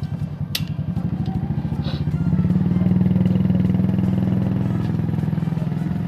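A nearby motor vehicle engine running with a low, rapid pulse, growing louder about two seconds in and then easing a little.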